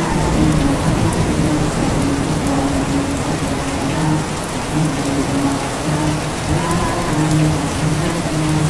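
Steady rain falling, with a voice chanting shalawat in long held notes beneath it.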